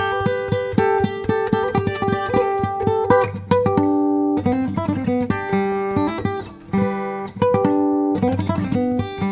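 Acoustic guitar playing an instrumental passage. A quick run of picked notes for about the first three seconds gives way to held, strummed chords that change every second or so.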